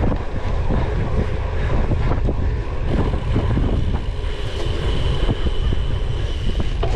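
Wind buffeting the microphone over a steady low rumble, with frequent small rattles and knocks, from a cyclocross bike being ridden over a rough course. A faint high steady tone comes in about halfway through.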